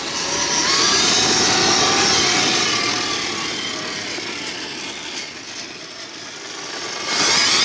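Eight-wheeled Primal RC Mega Truck with a 400kv brushless electric motor driving: a motor and gear whine that rises and falls in pitch with the throttle, over the noise of its tyres on the gritty surface. It is loudest for the first few seconds, fades as the truck pulls away, and grows loud again near the end.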